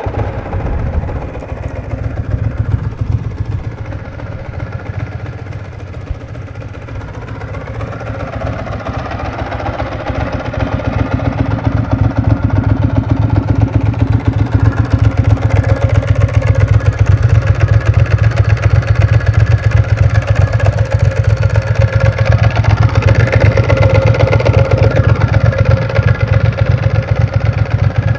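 A 1999 Ducati ST4's 916 Desmo V-twin starts right at the beginning and idles with a fast, pulsing beat through an aftermarket Staintune exhaust. It grows louder about ten to thirteen seconds in and holds there.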